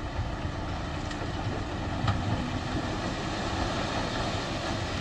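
Diesel dump truck running steadily while its raised tipper bed empties a load of soil and rock, a dense low rumble of engine and sliding earth, with a brief knock about two seconds in.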